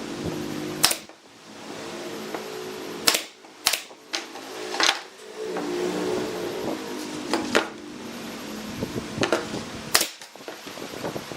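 About six sharp cracking bangs, irregularly spaced a second or more apart, over a steady low hum; workshop impacts while the cabinet is being assembled.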